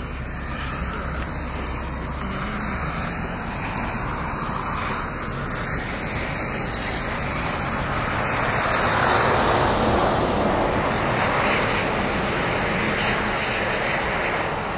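Wind rushing over the microphone, a steady noise that swells to its loudest about two-thirds of the way through and then eases a little.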